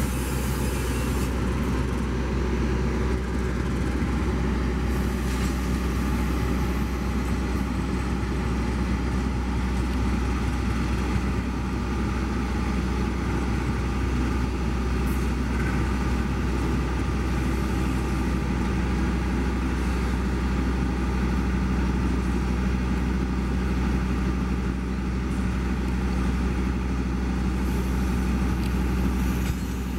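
A large engine running steadily with a deep hum, holding one pitch and level throughout.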